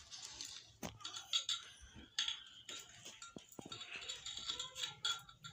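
Soaked sticky rice being pounded and scraped into flour in a bowl with a wooden pestle: a string of irregular knocks, clicks and scrapes.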